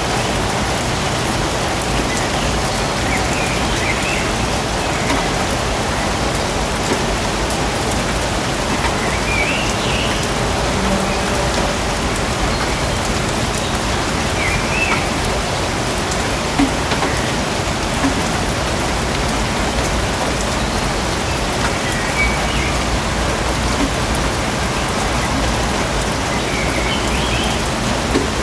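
Steady rain falling in a forest, an even hiss with a louder drop now and then.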